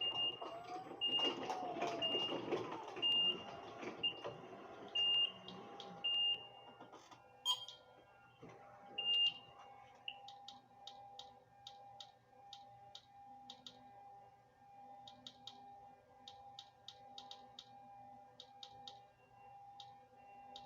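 Short high electronic beeps repeating about once a second, stopping about nine seconds in. After that, faint rapid clicking over a steady hum.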